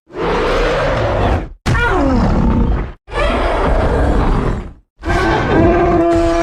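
King Kong giant-ape roar and grunt sound effects: four separate loud calls, each one to two seconds long, cut apart by brief silences. The second slides down in pitch, and the last ends in a steady pitched bellow.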